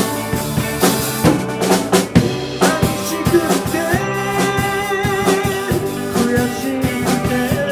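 Band music between vocal lines: a rock band with a full drum kit, the drums prominent with snare hits and bass drum, under held instrumental notes.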